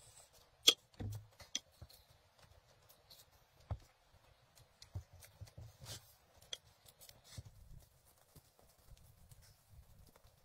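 Scattered sharp clicks and knocks of small objects, a cup and kettle, being handled on a wooden table. The loudest knock comes about a second in.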